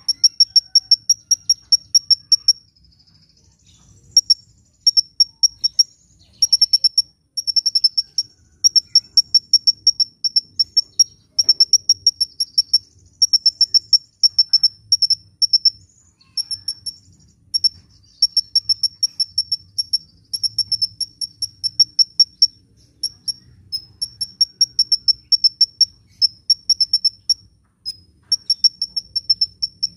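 Sunbird singing: rapid trains of high, thin, evenly spaced chips, about ten a second, in bursts of one to three seconds with short breaks between them.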